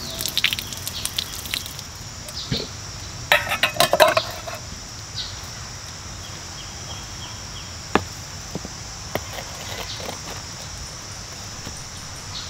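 Water poured from a pot splashing over a bare foot, then a brief burst of clattering knocks about three seconds in, over a steady high insect drone.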